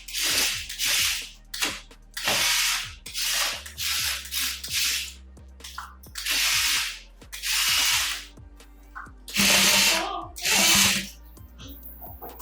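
A remote-controlled toy JCB's small electric motors and plastic gearboxes whirring in about a dozen short bursts, each under a second long, as its controls are pressed and released.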